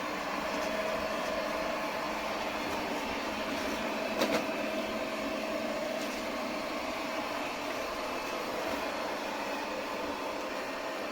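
Airzeen R7 robot vacuum running steadily, a whirring motor and suction hiss with a faint steady whine, and one short knock about four seconds in.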